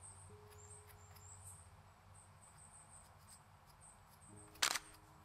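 Crickets chirping faintly with short, high, irregularly repeated chirps, over a few soft sustained music notes. Near the end a brief, sharp scratchy rustle stands out as the loudest sound.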